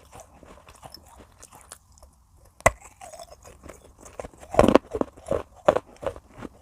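A person bites into a piece of clay pot with one sharp crack, then chews it close to the microphone with loud, regular crunches, about three a second.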